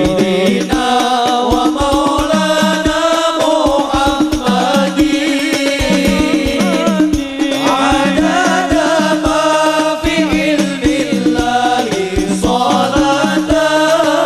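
Hadroh ensemble performing sholawat: men's voices singing a melody into microphones over hadroh frame drums beating a steady rhythm.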